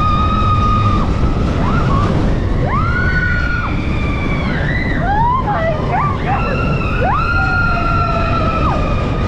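Roller coaster riders screaming in the dark: several long, high screams that swoop up, hold and fall off, one after another and overlapping near the middle. Under them is the steady rumble of the coaster train running on its track.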